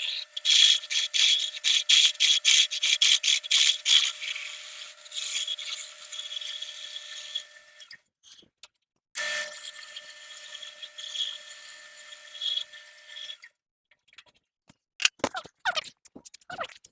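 Power tool working wood in the shop, most likely the wood lathe turning with a tool cutting the wood. There are rapid scratchy strokes over a steady hum, with a pause of about a second partway through, another stop, and a few short sweeping scrapes near the end.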